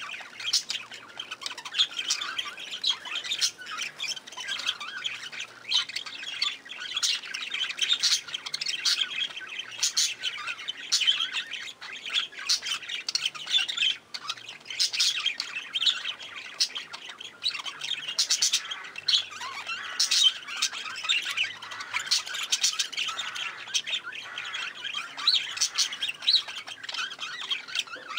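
A flock of budgerigars chattering and warbling, with many short, sharp squawks and chirps overlapping without a break.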